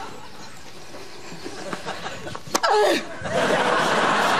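A sharp knock about two and a half seconds in, then a crowd of audience laughter swells up and keeps going.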